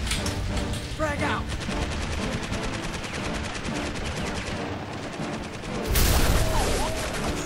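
Rapid machine-gun fire sound effects, many shots a second, then a louder burst of noise about six seconds in.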